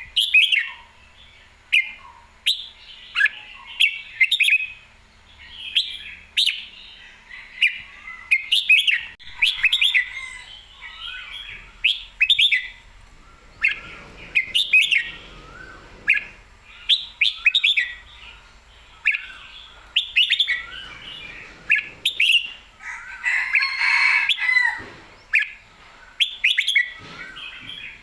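Red-whiskered bulbul singing short, bright warbled phrases again and again, with sharp clicks between them and a denser, louder run of song a little before the end.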